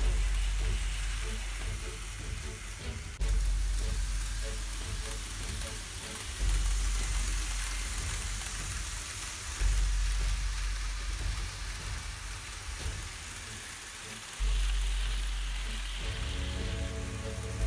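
N-scale model train, a 651 series Super Hitachi, running on the layout track: a steady crackling, rushing noise with a low rumble that swells abruptly every three seconds or so. Music comes back in near the end.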